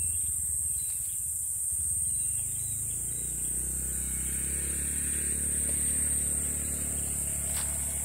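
Insects shrilling in a steady, high-pitched, unbroken drone, with a faint low rumble underneath.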